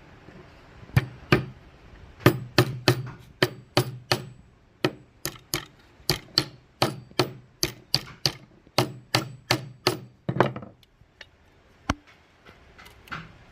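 Hammering on wood: a run of sharp blows, about two to three a second, that stops about ten seconds in, followed by a single blow and a few light taps near the end.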